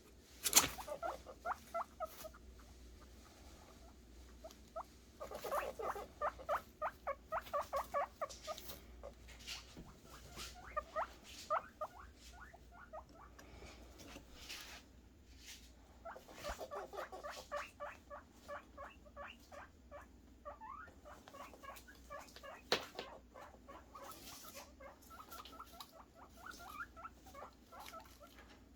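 Guinea pig boars squeaking in rapid runs of short repeated calls, several bouts one after another: the excited noises guinea pigs make when begging for food. A few sharp clicks and knocks are mixed in.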